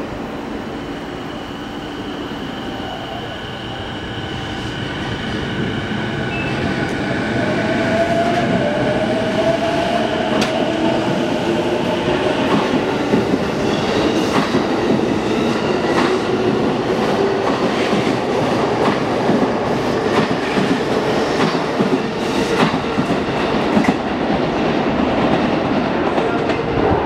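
E233 series electric multiple unit pulling out of a station: the motor hum rises in pitch as it gathers speed, then the wheels click in a steady rhythm over the rail joints as the cars pass close by, for about fourteen seconds. The clicking thins out near the end as the last car goes by.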